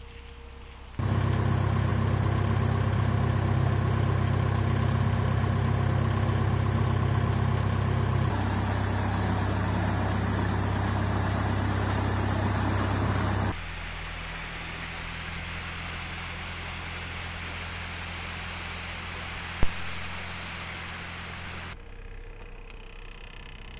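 Narrowboat engine running at a steady speed, heard in several abruptly joined clips: loud at first, with rushing water added partway through, then quieter, with a single sharp knock near the end.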